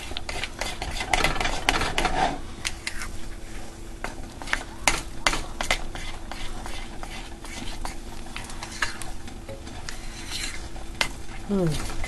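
A utensil stirring a thick, sticky mix of melted white chocolate and peanut butter in a glass double-boiler bowl, with frequent light clicks and scrapes against the glass.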